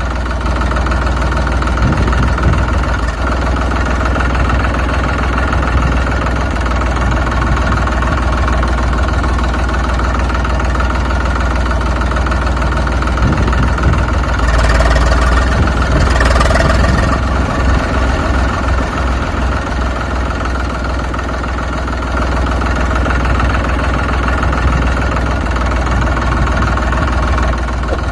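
Engine idling steadily with a deep rumble, growing louder with a rushing hiss for a few seconds about halfway through.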